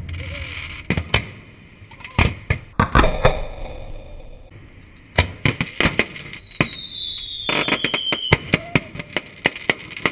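Fireworks going off at close range: a rapid series of sharp bangs and crackles, thinning out in a quieter stretch near the middle. From about six seconds in, a whistle slides down in pitch over a couple of seconds, and another starts near the end.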